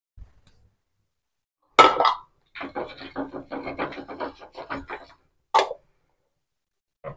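A sharp knock, then a few seconds of quick scraping strokes as the surface of a heated dosa griddle (tawa) is wiped, and another knock a little later.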